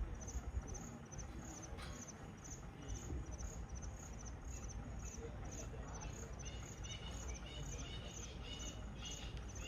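Faint insect chirping in a steady rhythm of about two high chirps a second. A few short, higher calls join in over the last few seconds.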